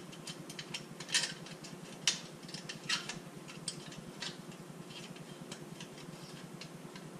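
Sparse, irregular metallic clicks and clinks, roughly one a second, of a hand wrench working the clamp bolt on a motorcycle's stock exhaust can, over a low steady hum.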